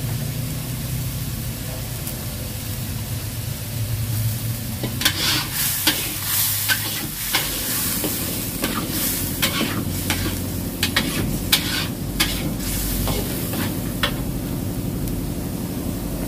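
A metal spatula stirring and scraping a frying yellow spice paste around a wok over a wood fire. A run of sharp scraping strokes starts about five seconds in and dies away near the end.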